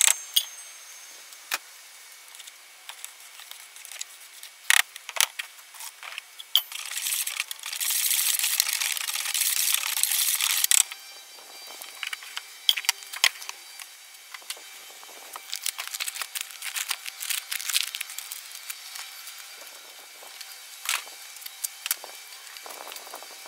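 Clinks, knocks and rattles of a plastic bucket, water jug and tools being handled while mixing ceramic glaze, with a steady rushing hiss for about four seconds in the middle.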